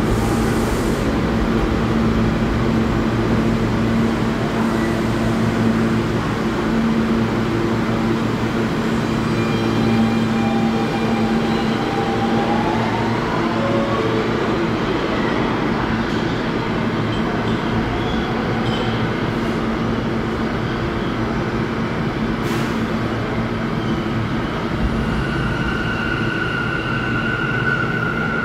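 R160B New York subway train pulling out and running off down the tunnel: a steady rumble and hum, with a whine that rises in pitch about halfway through as it gathers speed. A high, steady whine comes in near the end.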